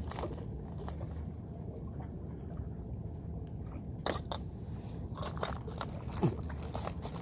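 Handling noise of fingers working a fishing line close to the microphone: scattered small clicks and crackles, with sharper ticks about four and five seconds in, over a steady low rumble.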